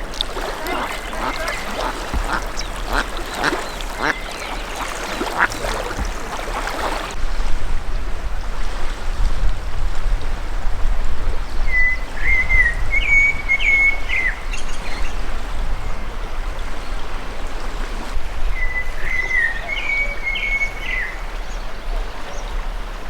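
Birds at a loch: a busy run of calls for the first several seconds, then a steady low rush with a songbird singing two short phrases, one about halfway through and one near the end.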